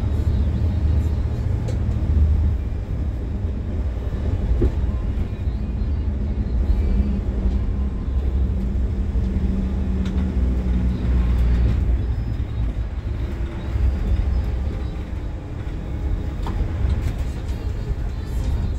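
An Iveco city bus driving along, heard from the driver's cab, with its diesel engine running as a steady low rumble. The engine note swells and falls back around the middle.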